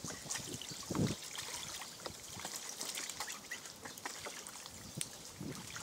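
Young white ducks calling now and then while splashing about in a tub of water, with one louder call about a second in.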